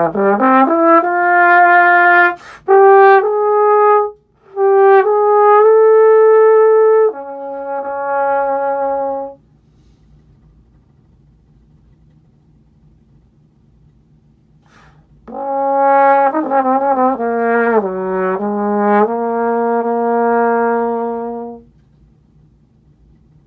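Solo trombone playing unaccompanied melodic phrases of held notes: one phrase, a rest of about six seconds, then a second phrase that ends shortly before the close.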